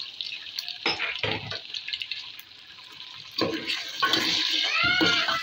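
Boiled meat pieces tipped into hot oil and browned garlic in a metal pot, sizzling as they fry, with clatters of the metal ladle. The sizzle grows louder and denser about four seconds in as the meat is stirred.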